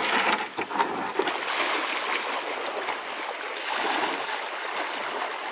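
Shallow, rocky creek water running, with splashes, including a few short sharp splashes about half a second to a second in.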